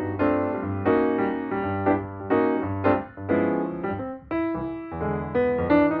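Background music: piano-like keyboard chords over a low bass, changing in a steady rhythm.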